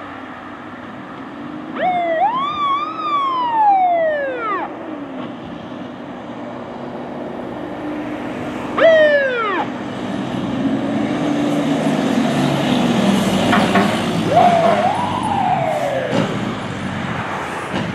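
Fire engine siren sounding in three separate rise-and-fall wails, the second one short. Between the later wails the truck's engine grows louder as it passes close by.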